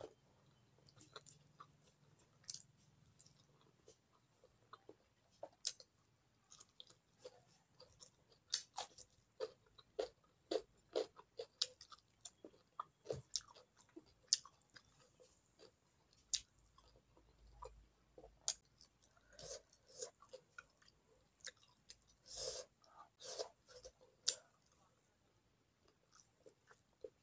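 Quiet, close-up chewing and wet mouth smacks and clicks as a person eats rice and fish curry by hand, with irregular soft ticks through the stretch and a denser run of smacking near the end.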